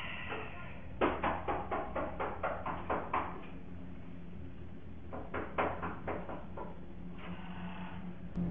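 Rapid knocking on a wooden panel door: a quick run of knocks lasting about two seconds, a pause, then a shorter run of about eight knocks.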